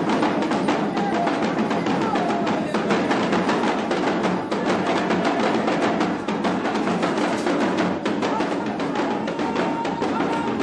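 Live percussion music, with drums and sharp clicking strikes keeping a dense, fast, steady rhythm, and voices singing along faintly.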